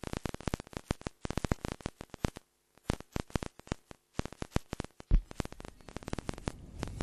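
Irregular crackling clicks, several a second, stop about five seconds in. A low thud follows, then a low rumble that slowly grows louder.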